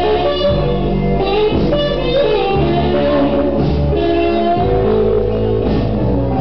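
Blues song with a singing voice, guitar and steady bass notes, played loud over a sound system for dancing.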